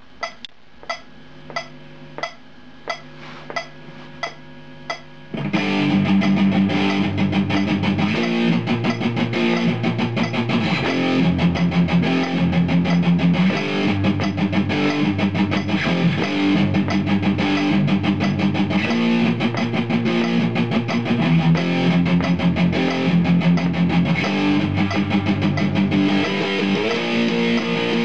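Electric guitar playing power chords in a steady rock rhythm. It starts about five seconds in, after a count-in of evenly spaced clicks, roughly one and a half a second.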